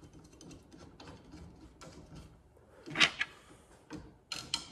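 Wing-upright mounting screws being set lightly by hand: small metallic clicks and rattles as the bare metal upright is held against the trunk deck and the screws are turned in, with one louder brief scrape about three seconds in and two more near the end.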